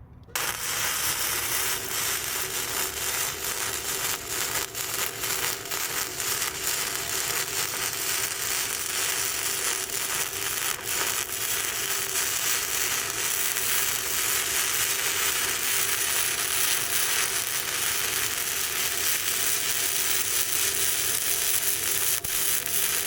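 Welding arc from a BestArc MIG145 welder, crackling and sizzling continuously while a bead is laid. It starts abruptly just after the beginning, with a steady tone underneath.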